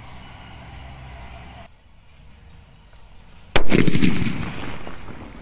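Big drum-shaped 'dholak' Diwali firecracker bomb going off with a single loud bang about three and a half seconds in, its boom and echo dying away over the next second and a half.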